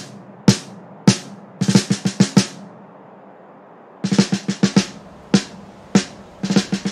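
Snare drum playing a drum break: single strikes alternating with quick fills of several strokes, with a gap of about a second and a half near the middle.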